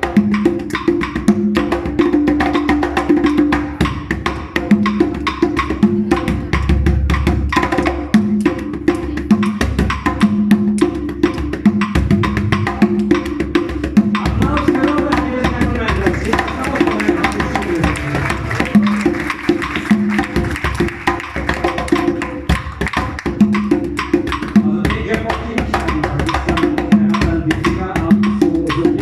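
Guaguancó rumba percussion: conga drums playing a repeating pattern under steady, sharp wooden clicks.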